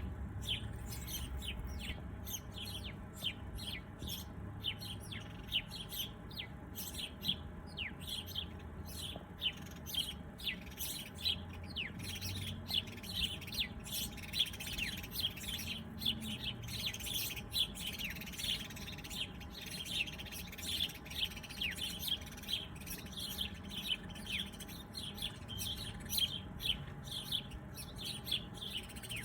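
Birds chirping in a dense, continuous stream of short, quick chirps that slide downward in pitch.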